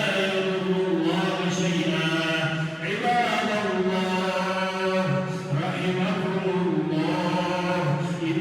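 A man's voice chanting Arabic Quranic recitation in a slow, melodic style. Long held notes bend and turn in ornamented runs, with a brief breath about three seconds in.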